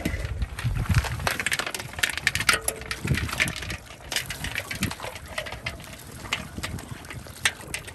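Shallow muddy water splashing and sloshing as a plastic basket and hands scoop through it and drag wet weeds aside, in a run of short irregular splashes.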